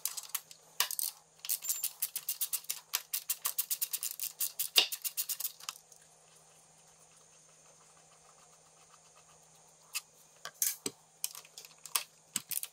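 Ratchet with a T27 Torx bit clicking in a fast run, about eight clicks a second, as a radiator screw is backed out. After a pause, a second, sparser run of clicks near the end.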